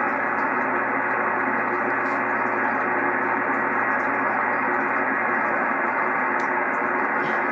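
Amateur radio transceiver's speaker on the 6-metre band giving steady static hiss between calls. The hiss is cut off sharply above the receiver's narrow voice passband.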